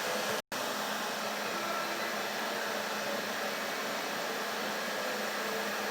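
Coal forge's air blower running steadily, a constant rush of forced air through the fire as the rod heats, with a brief cut-out about half a second in.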